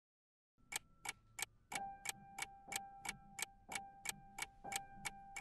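A clock ticking evenly at about three ticks a second, starting a little after half a second in. A faint steady held tone joins about 1.7 s in.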